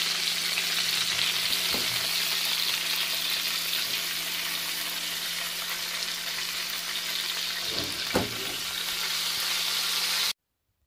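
Pieces of Thomson fish (horse mackerel) shallow-frying in oil in a frying pan, a steady dense sizzle. Two short knocks of the pan or a utensil, about two seconds in and again near eight seconds, the second the loudest; the sizzle cuts off suddenly near the end.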